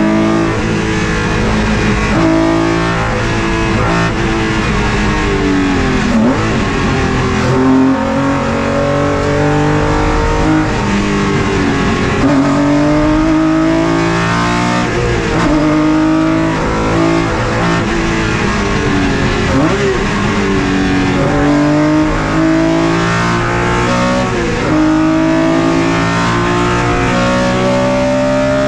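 BMW M1 race car's straight-six engine heard from inside the cockpit at race pace, its note climbing steadily through each gear and dropping sharply at the gearshifts, several times over.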